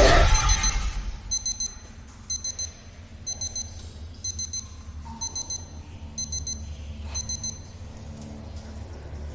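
Electronic beeping from a wrist device: bursts of four quick high beeps about once a second, coming faster toward the end and stopping about seven and a half seconds in, over a low steady drone.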